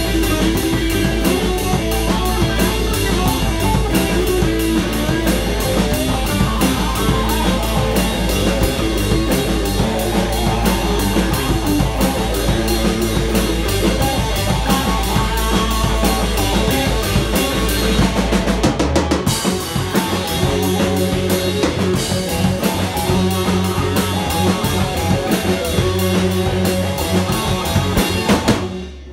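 Live blues-rock band playing loud: a drum kit keeping a steady beat under electric guitars, bass guitar and electric keyboard. The bass line changes about two-thirds of the way through, and the band stops on a final hit just before the end.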